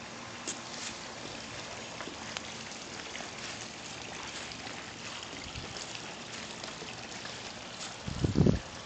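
Steady trickling of running water with a few faint drips. Wind buffets the microphone in loud low blasts near the end.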